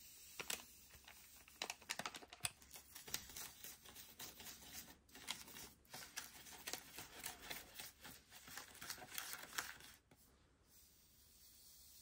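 A small plastic spoon scraping and clicking quickly against a plastic candy tray as powder and water are stirred together, with a foil packet rustling at the start. The stirring stops about ten seconds in.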